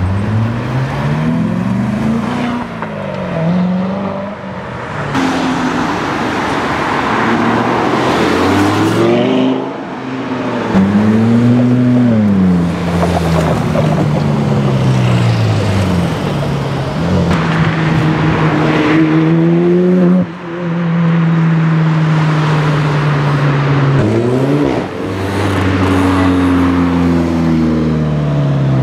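Several sports car engines accelerating and revving past one after another, the pitch climbing and dropping with each gear change, among them a Ferrari 458 Speciale's V8. The sound jumps abruptly from one car to the next several times.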